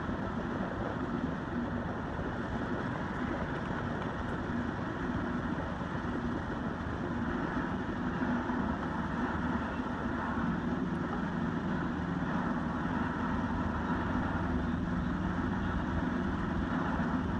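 Steady rumbling background noise with a low hum and no distinct events.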